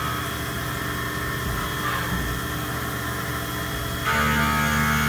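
CNC milling machine running: a steady machine hum and whine from the spindle and cut. The whine fades at the start and comes back strongly about four seconds in.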